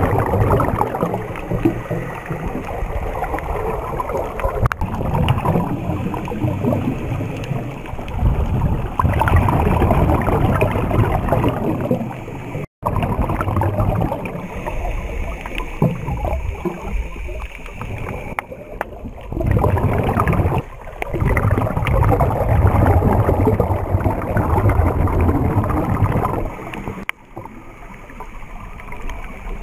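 Muffled underwater rushing and bubbling, heard through a waterproof camera housing, swelling and fading every few seconds. The sound cuts out briefly near the middle.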